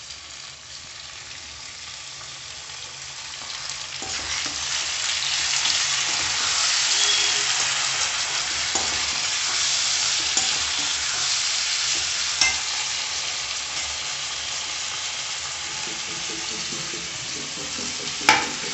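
Chopped tomatoes sizzling as they fry with onions in a metal kadai, stirred around the pan; the hiss of frying grows louder about four seconds in. A sharp knock comes about twelve seconds in, and a slotted spoon clacks against the pan a few times near the end.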